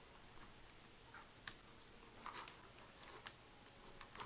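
Near silence broken by a few faint clicks of a USB plug and a small buck-converter module being handled and fitted together, the sharpest click about one and a half seconds in and another near three and a half seconds.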